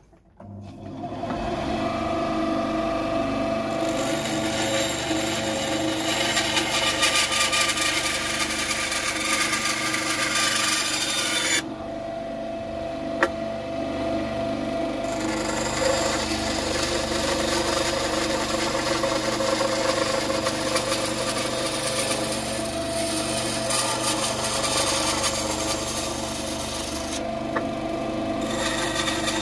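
Benchtop bandsaw spinning up and running steadily, its blade cutting a small piece of wood along a marked bow-tie outline. The cutting comes in two long stretches with a short break in between, where only the motor and blade hum.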